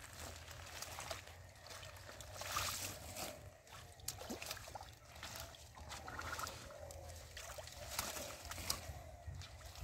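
Hands groping in shallow muddy water, with irregular sloshing and small splashes and the rustle of water hyacinth being pulled aside.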